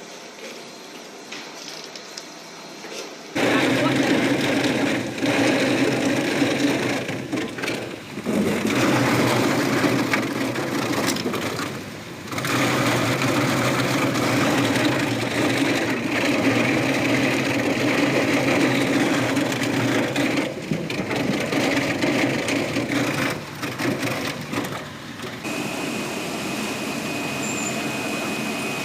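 Passion fruit processing machine running with a steady motor hum that starts abruptly about three seconds in. The noise dips briefly several times, and a steady high whine joins it near the end.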